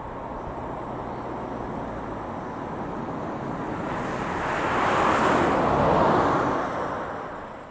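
A road vehicle passing close by: tyre and road noise that swells to a peak about five to six seconds in, then fades away.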